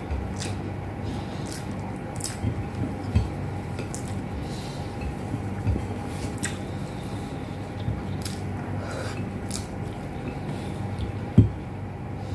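Close chewing and wet, squishy mouth sounds of someone eating rice and beef with eggplant by hand, with fingers pressing rice on a plate. Soft clicks and thuds recur over a steady low hum, with one sharper low knock near the end.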